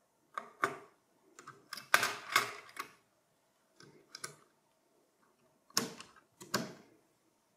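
LGA1150 CPU socket's metal load plate and retention lever being closed down over the Intel Core i5-4570: a series of sharp metallic clicks and scrapes, loudest about two seconds in. Near the end come two more clicks as the memory slot latches are flipped open.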